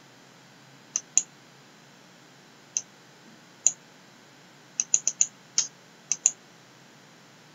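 Computer mouse button clicking: about eleven sharp clicks, several in quick pairs, with a fast cluster about five seconds in, over a faint steady hiss.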